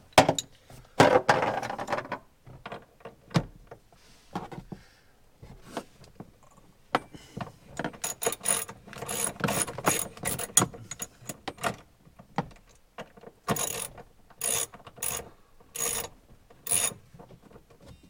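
Hand ratchet clicking in quick short bursts as a seat belt anchor bolt is worked loose, with knocks and handling noise in between.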